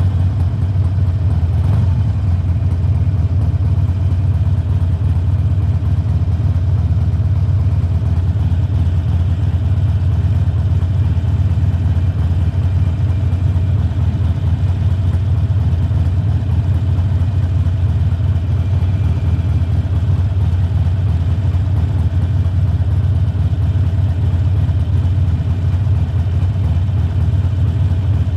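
2020 Harley-Davidson Forty-Eight's air-cooled 1200 cc V-twin idling steadily through Khrome Werks slip-on mufflers, with a low, even note and no revving.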